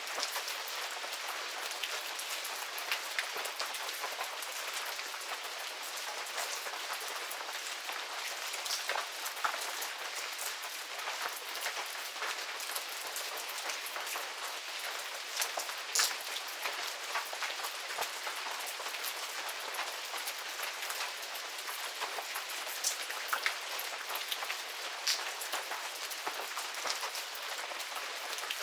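Medium rain falling steadily: an even hiss with scattered sharp drop splats, one louder splat about halfway through.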